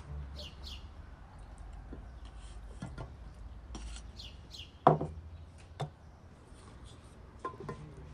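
Cooking utensils and dishes being handled: scattered clicks, scrapes and knocks, with one sharp, ringing knock about five seconds in and a couple of smaller ones after it.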